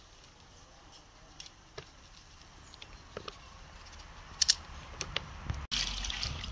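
Kitchen knife peeling pumpkin rind over a plastic basin: faint scraping and small clicks, with one sharper click about four and a half seconds in. Near the end, water splashing in a plastic basin as pumpkin pieces are washed by hand.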